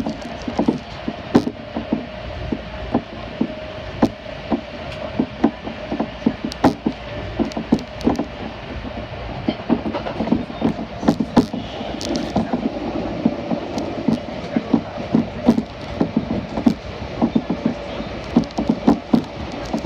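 Kintetsu electric commuter train running, heard from inside the carriage: a steady hum under low rumble, with frequent irregular clicks and knocks from the wheels running over the track.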